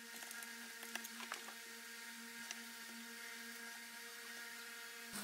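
Faint steady electrical hum over low hiss, with a few soft clicks and taps from small parts being handled on a plywood board.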